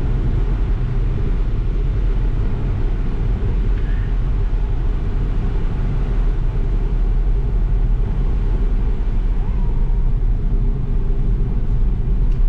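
Car driving on the road, heard from inside the cabin: a steady low rumble of engine and road noise.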